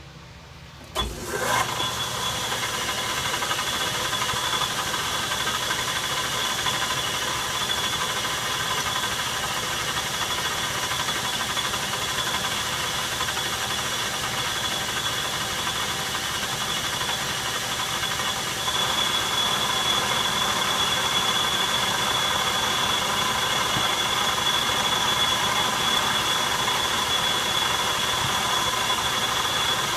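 Metal lathe switched on about a second in, its chuck spinning up and then running steadily with a high whine. The running gets a little louder about two-thirds of the way through.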